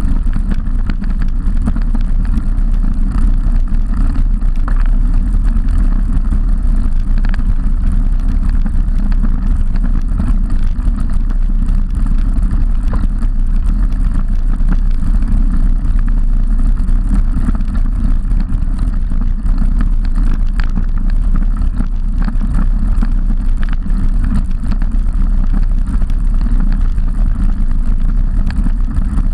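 Steady wind rush buffeting the microphone of a camera mounted on a moving road bike, mixed with the hum of tyres on tarmac and a few faint ticks.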